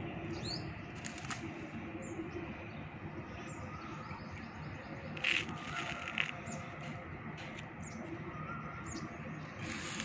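Outdoor background with a steady low noise and small birds chirping on and off in short high notes. A couple of brief louder rustling sounds come about five and six seconds in.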